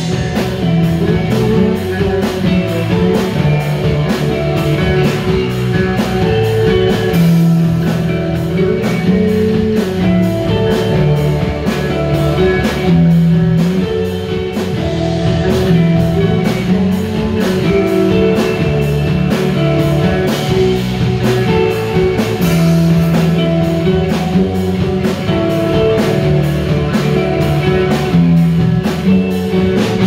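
Live rock band playing: two electric guitars, electric bass and a drum kit, with held guitar notes over a steady drum beat.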